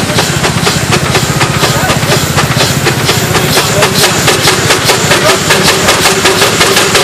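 Steam traction engine running in place, its exhaust beating rapidly and evenly up the smokestack.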